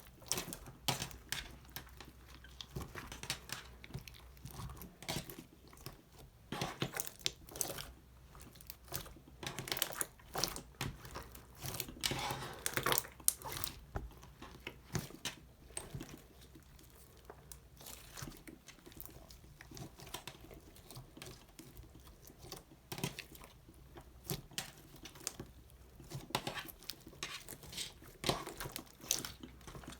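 Slime being worked by hand, with sticky crackles and small popping clicks at an uneven pace.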